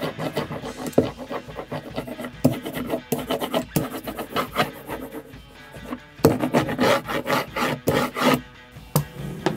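Hand ink brayer rolling back and forth over a carved wooden relief block, inking it in quick repeated rubbing strokes, with the busiest stretch in the second half. Background music plays underneath.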